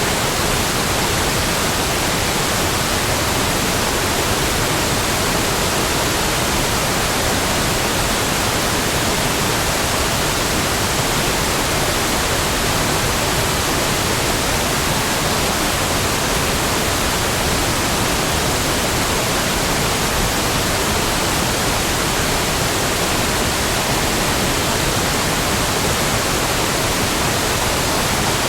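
Heavy waterfall: a steady, loud rush of falling water, even from deep to hissing high, with no change throughout.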